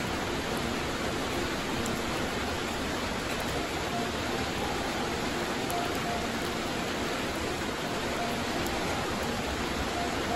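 Heavy rain pouring steadily onto concrete and grass, an even hiss with no let-up.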